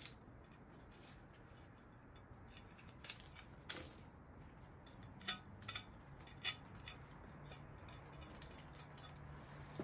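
Kitchen knife cutting the core out of a red bell pepper: a handful of short, sharp clicks and snaps at irregular intervals, most of them near the middle.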